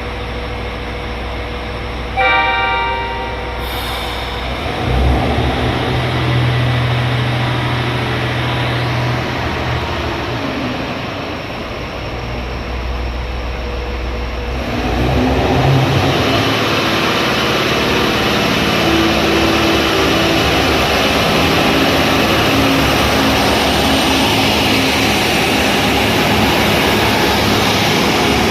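JR Hokkaido H100 DECMO diesel-electric railcar sounding its horn once, about two seconds in, then its engine running up as it pulls away. Wheel and running noise build from about halfway and stay loud as the train gathers speed.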